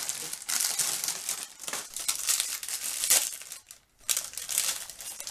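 Plastic wrapper of a pack of brown rice cakes crinkling and rustling as it is pulled open by hand, in a run of rustles with a brief pause about three and a half seconds in.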